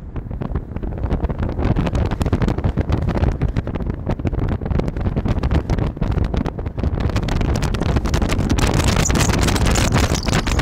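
Wind buffeting the microphone of a camera carried along at speed: a loud, ragged rumble that grows stronger and hissier near the end.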